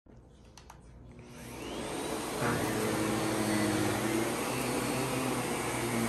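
Miele vacuum cleaner switched on: two short clicks, then the motor spins up with a rising whine over about a second and settles into a steady run.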